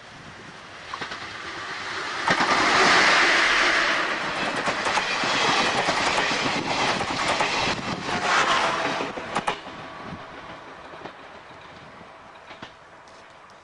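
EF58 electric locomotive hauling a rake of 12-series passenger coaches passing close by: it builds up to its loudest as the locomotive goes past about two to three seconds in, then the coaches' wheels clack over the rail joints, and the sound fades away over the last few seconds.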